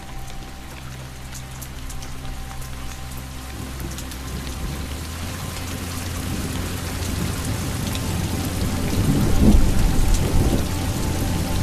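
Steady rain falling, with scattered drops pattering close by. A low rumble of thunder builds through it and peaks about three-quarters of the way in.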